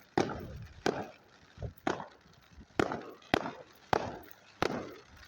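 Fireworks going off: about seven sharp bangs at uneven spacing, each trailing off in a short echo.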